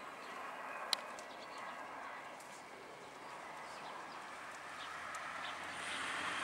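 Outdoor rural ambience: a steady hiss with scattered faint bird chirps and one sharp click about a second in, the hiss growing louder near the end.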